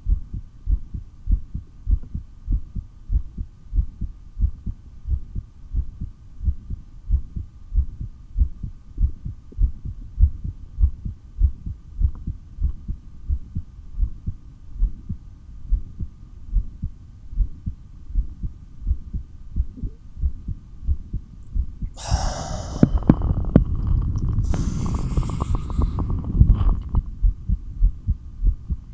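Heartbeat picked up through a stethoscope, a steady, regular pounding during a long breathhold. About two-thirds of the way through, a loud rushing breath in two parts, out then in, covers the heartbeat for about five seconds.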